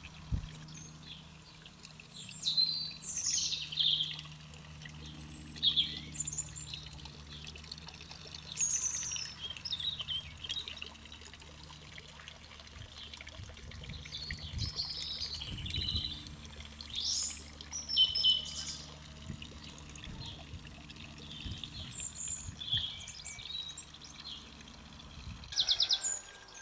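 Garden birds singing: a run of short warbled phrases and chirps. A low steady hum lies underneath and stops near the end.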